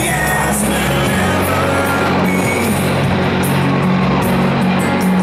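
Rock song with guitar and drums playing over outdoor loudspeakers at a steady, loud level.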